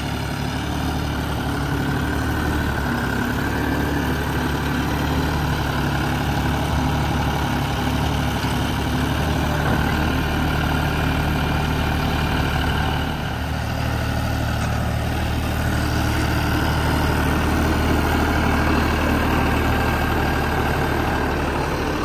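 John Deere 5075E tractor's diesel engine running steadily as it works the front loader, with a brief dip in level a little past halfway through.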